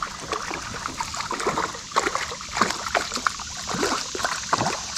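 Water splashing and sloshing in quick, irregular bursts as a hooked crappie is reeled in to the boat.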